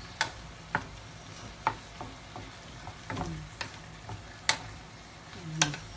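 Wooden spatula stirring squid, onion and tomato as they sauté in a nonstick frying pan, over a soft sizzle, with irregular sharp taps and clicks of the spatula against the pan.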